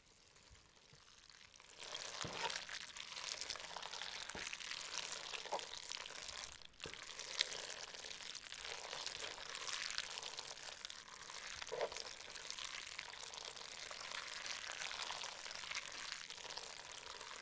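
Thick macaroni and cheese stirred with a wooden spoon in a pot, close up: a steady wet, clicky stirring noise that starts about two seconds in, with a brief break about seven seconds in.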